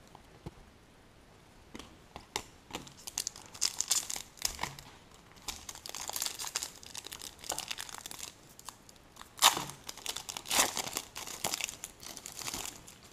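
Foil wrapper of a 2015 Select Soccer trading-card pack being torn open and crinkled as the cards are pulled out: irregular crackling and ripping that starts after a quiet second or two, with the sharpest rips a little past the middle.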